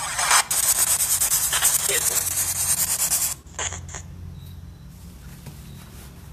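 A harsh rubbing, scraping noise that stops abruptly a little over three seconds in, leaving a low hum.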